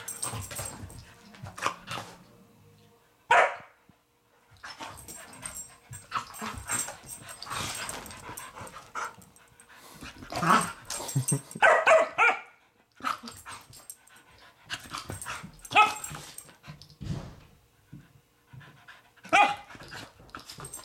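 Two dogs, a grown dog and a six-month-old puppy, play-fighting: panting and scuffling, broken by short barks every few seconds, with a quick cluster of them about twelve seconds in.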